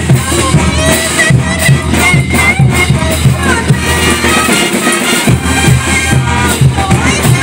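Brass band playing with cymbals, bass drums and snare drums keeping a steady beat about twice a second under a brass melody of trumpets and sousaphones. The low drum beat drops out briefly about five seconds in, then comes back.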